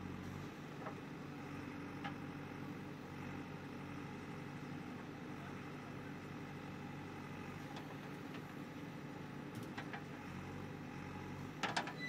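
JCB 3DX backhoe loader's diesel engine running steadily under load as the backhoe digs and swings a bucket of soil, with a few short knocks and a louder clatter of knocks near the end.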